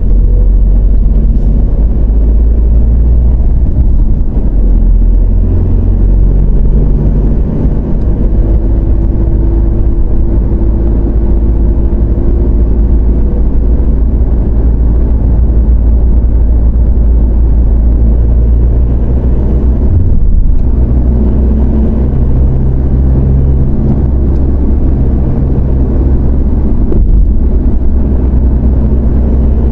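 Toyota Hilux pickup driving in traffic, heard from inside: a steady, loud low rumble of engine and road noise. The engine note shifts about two-thirds of the way through.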